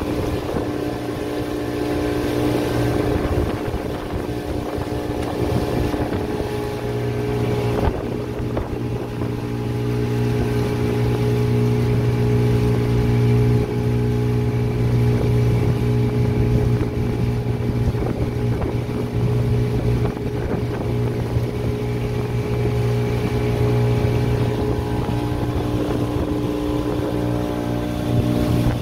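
Engine of a small open motor launch running steadily under way, with a hiss of water and wind over the hull.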